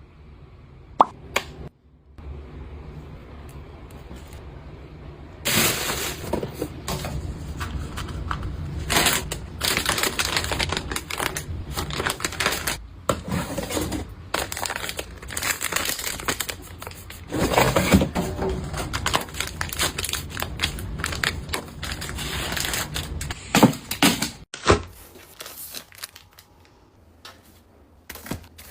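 Packaging crinkling and tearing, mixed with clicks and knocks of containers being handled. There is a single sharp tap about a second in, then dense crackling from about five seconds in until a sudden stop near the end, followed by a few light clicks.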